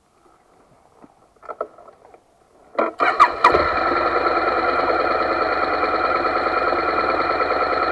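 Motorcycle engine started: after a few faint clicks and rustles, the starter cranks briefly about three seconds in, the engine catches and then idles steadily.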